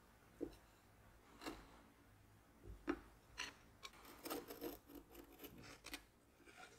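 Faint sounds of lemon cream being filled into a baked tart shell: a few soft taps from the spoon, then a quick run of short scraping strokes as a metal palette knife smooths the cream across the shell.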